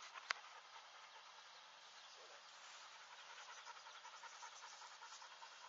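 Near silence: faint outdoor ambience with one sharp click shortly after the start.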